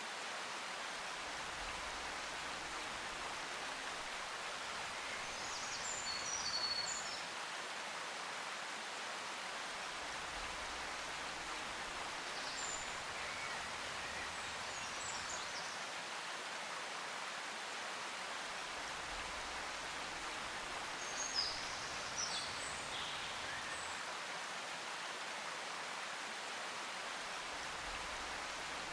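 A steady hiss of outdoor ambience, with scattered short, high bird chirps a few times.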